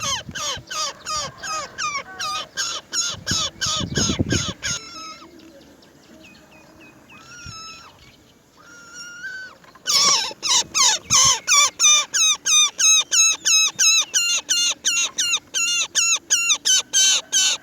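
Roller nestlings in a wooden nest box giving rapid, repeated begging calls, about four a second, as they are fed. The calls thin to a few quieter ones for several seconds in the middle, then come back loud about ten seconds in. There are low rumbles twice in the first five seconds.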